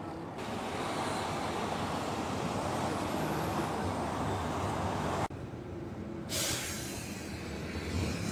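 Steady vehicle and road noise heard from a moving vehicle. It cuts off abruptly about five seconds in and gives way to a quieter stretch of traffic noise.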